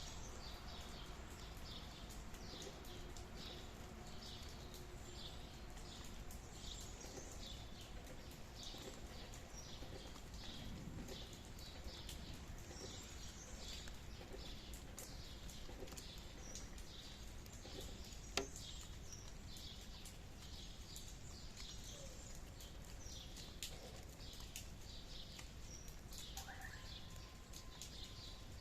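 Faint outdoor nature ambience: a steady low rumble under a high, evenly repeated chirping, about two chirps a second, with one sharp click past the middle.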